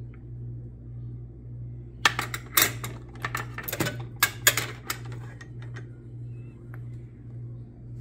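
Charly/Finsterwalder Paralock quick-release carabiners clicking and clattering against the metal pan of a dial kitchen scale as they are set on it to be weighed: a quick run of sharp clicks and knocks over about three seconds, with a steady low hum underneath.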